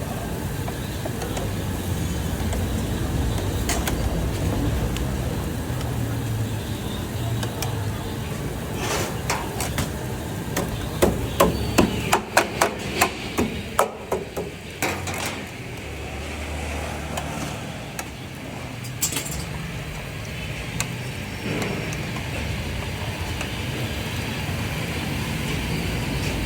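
A quick run of sharp knocks, about three or four a second, in the middle, with a single knock later, over steady traffic and street noise.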